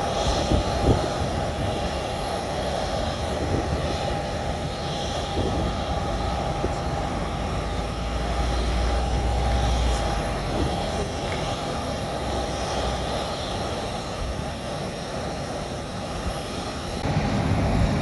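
Jet airliner engines running steadily across the airfield: a steady whine over a rushing noise, with the low rumble swelling briefly about halfway through.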